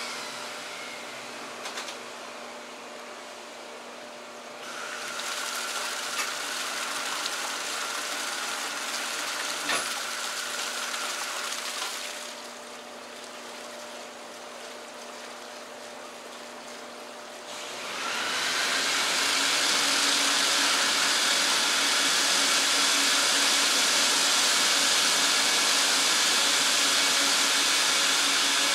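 Vacuum motor of an Oriental-rug wash system running with a steady whine while water sprays over the rug and is drawn down through it from underneath. It gets louder about 5 s in, drops back about 12 s in, and rises again from about 18 s, staying loud.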